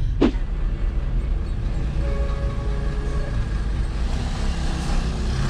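Steady low rumble of a car moving in slow traffic, heard from inside the cabin. A brief falling sound comes just at the start, and a faint held tone about two to three seconds in.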